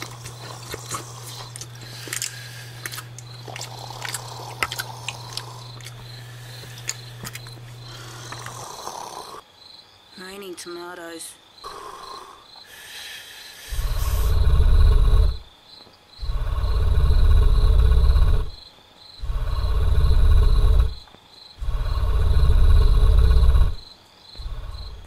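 Loud, deep snoring: four long snores, one about every three seconds, in the second half. Before them there is a steady low hum with small rustles and clicks, and a short wavering whine about ten seconds in.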